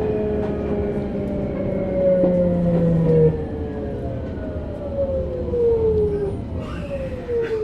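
Sotetsu New 7000 series motor car's Hitachi GTO-VVVF inverter and traction motors whining over the rumble of the running gear. The car is known for an abnormal motor noise. The whine falls in pitch in repeated stepped slides as the train slows.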